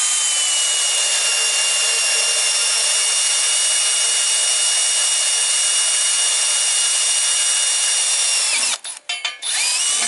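Power drill motor whining steadily as a freshly sharpened 5/32-inch bit drills dry, with no cutting oil, into quarter-inch steel plate. About eight and a half seconds in, the drill stops and restarts in a few quick stutters, then spins back up.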